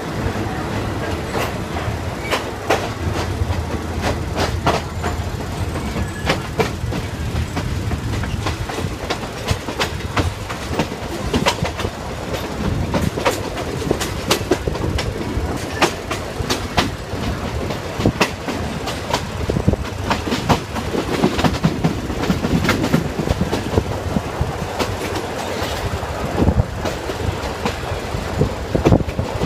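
Thai State Railway ordinary passenger train running on the line, heard from a carriage: a steady rumble with many irregular clicks and knocks as the wheels pass over rail joints.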